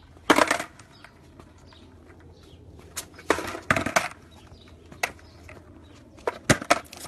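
Skateboard clattering on concrete: wheels and deck knocking and rolling on the pavement in several short, loud bursts.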